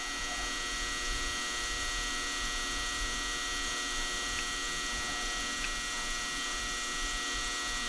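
Steady electrical hum made of several constant tones, with a thin high whine over it, and two faint ticks around the middle.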